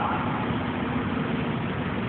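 Steady street traffic noise: car engines running and idling.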